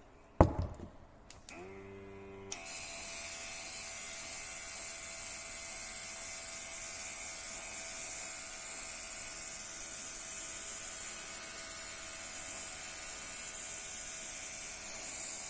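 Small cordless rechargeable airbrush compressor: a click, then its motor starts humming. About a second later the airbrush trigger is pulled and compressed air hisses steadily through the airbrush as it sprays paint, with the motor's whine under it, until the trigger is let go at the very end.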